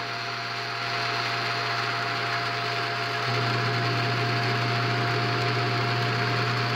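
Bell & Howell 8mm film projector's motor and mechanism running at normal speed: a steady hum with a thin high tone above it, growing louder about three seconds in. The owner says its drive belt needs replacing.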